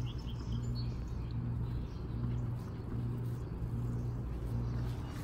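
A low mechanical hum, swelling and fading about once a second. A few faint high chirps can be heard near the start.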